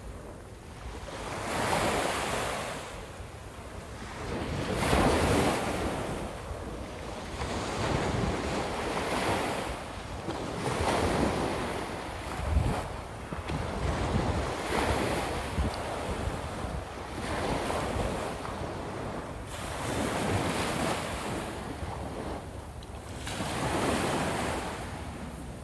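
Small waves breaking and washing up on a sandy beach, a surge of surf about every three seconds, with wind buffeting the microphone.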